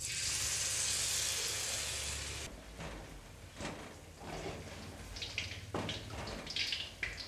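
Spoonful of vegetable fritter batter dropped into hot oil in a wok, sizzling at once, strongest for about the first two and a half seconds, then dying down to a lower sizzle. Short scrapes and knocks of a spatula and slotted ladle against the wok follow.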